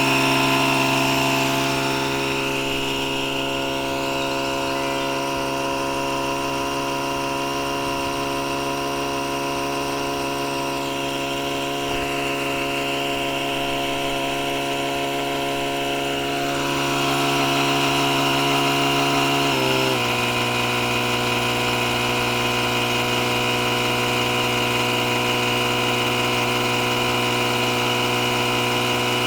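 ETENWOLF Vortex S6 portable air compressor running steadily as it inflates a truck tire, a motor hum that starts at once. About twenty seconds in its pitch steps down slightly.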